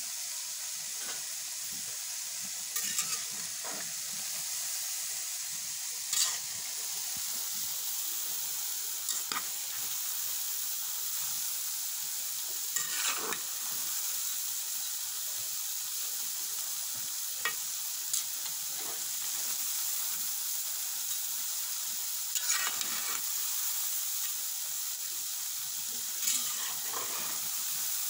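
Small dough pieces (daddies, or chin chin) deep-frying in hot oil with a steady sizzle. A metal slotted spatula stirs them, scraping against the metal pot in short strokes every few seconds.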